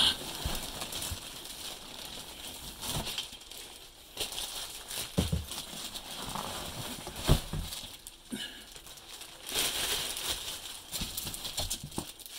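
Bubble wrap and plastic packaging rustling and crinkling as it is pulled about in a cardboard box, with scattered knocks and one sharper thump about seven seconds in.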